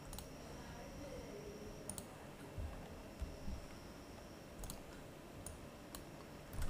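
Computer mouse clicking, a handful of single clicks spaced a second or more apart, faint over low room hiss.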